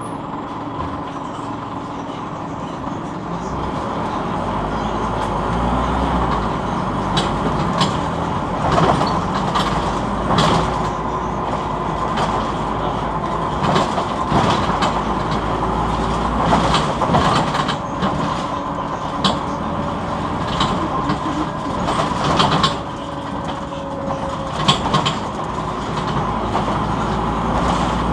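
Inside a Scania NewOmnicity city bus on the move: engine and drivetrain running with a steady low hum that grows louder about four seconds in, with frequent rattles and knocks from the body and fittings over the road.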